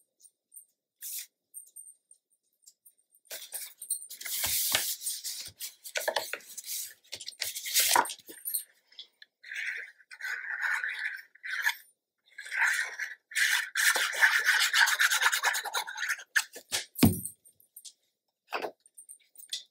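Paper being handled and rubbed down by hand: irregular rustling and rubbing strokes as patterned paper panels are glued onto black cardstock, with a liquid glue bottle worked across a panel in the middle. A single dull thump near the end.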